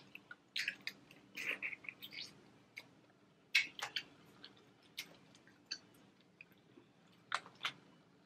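Irregular sharp clicks and crackles of boiled crawfish shells being cracked and peeled by hand, with small wet eating sounds between them.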